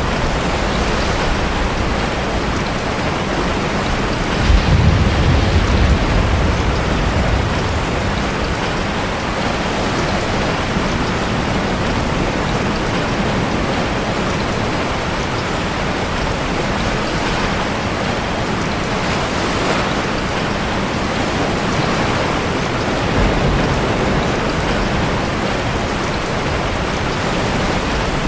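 Heavy rain and ocean surf in a sea cave, a steady dense hiss, with a deep rumbling surge about four to six seconds in.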